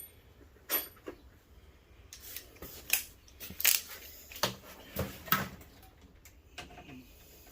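Scattered sharp clicks and light metallic clinks of a drill bit being swapped for a star-head bit, with about half a dozen louder taps.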